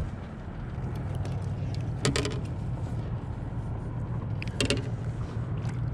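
Handling noise on a kayak: a steady low rumble, with a click at the start and two short knocks about two and four and a half seconds in, as gear and hands knock against the hull.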